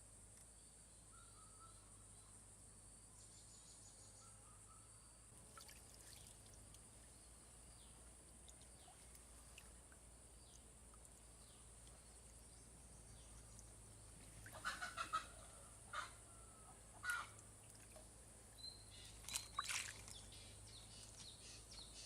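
A faint, steady, high-pitched insect drone, then birds calling in a few short, rapid bursts from about two-thirds of the way in.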